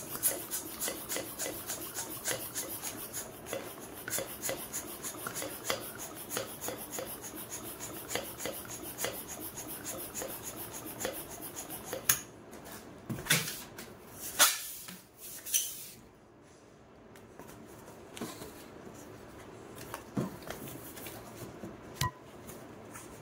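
Hand pump inflating a long latex modelling balloon: quick, even pump strokes about three a second for roughly twelve seconds. Then a few louder rubbing sounds from the inflated latex balloon as it is handled and knotted.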